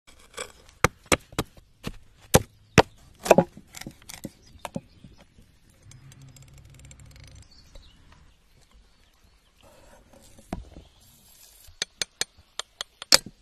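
Sharp knocks and chops from a heavy cleaver striking dirt and pine cones, then a soft steady scrape as the cleaver slices a raw fish fillet on a wooden board. Near the end comes a quick run of taps.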